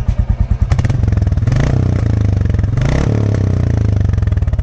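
Royal Enfield Classic 350 Reborn's 349 cc single-cylinder engine, breathing through a free-flow bend pipe with the catalytic converter removed and the stock silencer kept. It idles with an even thump from the exhaust, is revved up about a second in, with the pitch rising and falling for about three seconds, and settles back to idle near the end. The modification makes the exhaust only a little louder when revved, about 5-10%.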